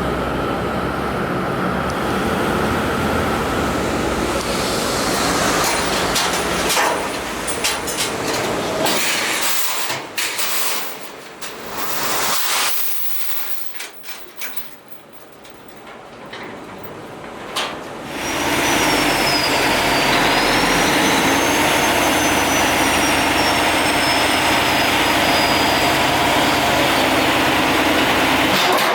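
Loaded logging truck running with engine and road noise. The sound changes abruptly several times: it drops much quieter and uneven for several seconds around the middle, then returns as a steady, louder drone with a faint wavering high whine over it.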